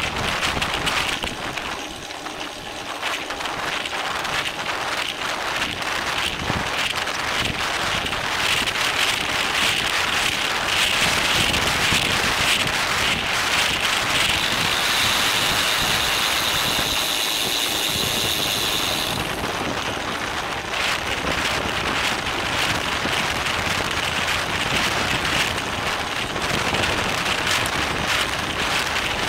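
Wind rushing over a bicycle-mounted camera's microphone while racing, mixed with rapid rattling from the bike over the road. A high steady whine joins in for a few seconds just past the middle.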